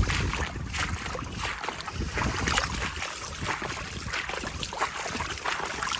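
Gusty wind buffeting the microphone, an uneven low rumble over a steady rushing hiss.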